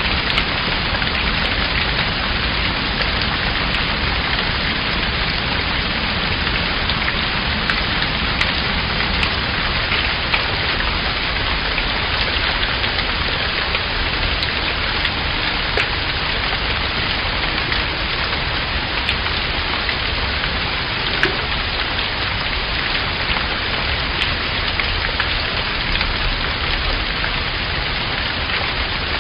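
Steady rain falling, a dense even hiss with many small drop ticks scattered through it.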